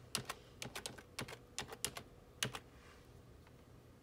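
Computer keyboard being typed on, a quick irregular run of about a dozen keystrokes as a word is typed, stopping a little over halfway through.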